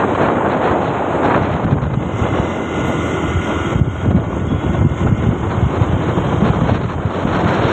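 Wind rushing and buffeting against the microphone of a moving motorcycle, with the bike's engine and road noise running underneath. The low gusts come and go.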